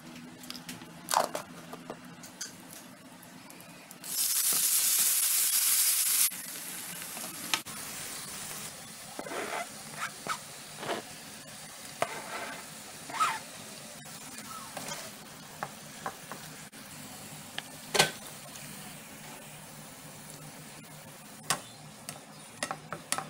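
Stir-frying in oil in a non-stick pan: a loud burst of sizzling about four seconds in, then steadier sizzling under the scrapes and taps of a spatula stirring shredded chicken, carrot and cabbage.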